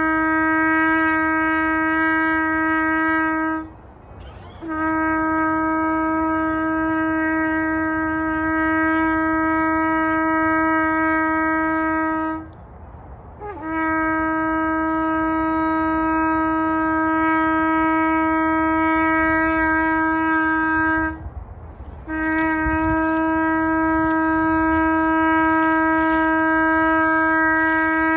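Shofar blown in long, steady, single-pitched blasts, each held for about eight seconds. Each blast is broken off briefly for a breath, three times.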